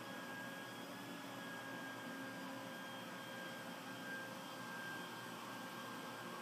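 Quiet room tone: a steady hiss with a faint electrical hum, and no distinct sounds from the animals or the ball.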